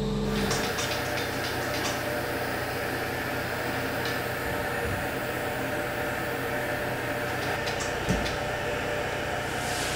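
Steady hum and hiss of stone-workshop machinery, with a few light clicks in the first two seconds and a single knock about eight seconds in. A forklift engine is heard only for the first half second.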